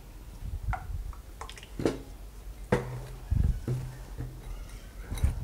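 Hands squeezing and kneading oil-greased whole-wheat dough in a glass bowl, with soft squishing and a few light clicks and knocks against the glass.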